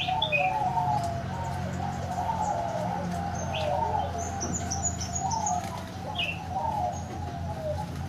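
Several zebra doves cooing, their rolling, staccato trilled coos overlapping without a break. Short high chirps cut in a few times.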